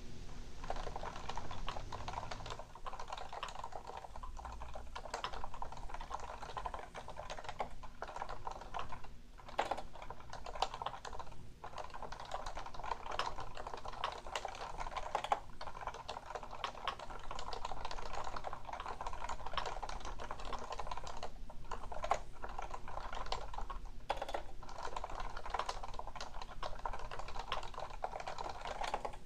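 Fast, continuous typing on a Topre Realforce 101, a keyboard with electrostatic capacitive (Topre) switches and variable key weighting, with a few short pauses between bursts of keystrokes.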